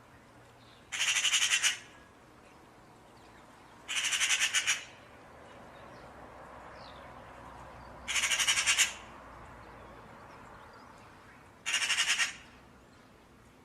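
A bird's harsh, rattling call, given four times about every three to four seconds, each call under a second long.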